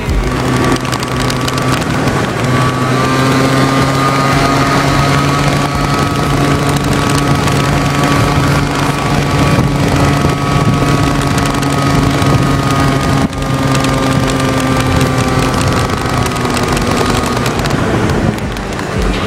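Aprilia SR50's 50cc two-stroke engine running at a fairly steady speed while riding, with wind noise on the microphone.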